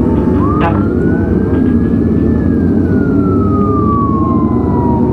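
Police escort siren wailing: one slow rise and fall in pitch across about five seconds, starting to rise again near the end. Beneath it, the steady low noise of motorcycle engines running.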